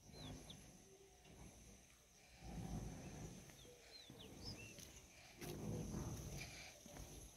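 Quiet open-air ambience: birds giving short, quick chirps now and then over a faint steady high-pitched whine, with a few soft low rumbles.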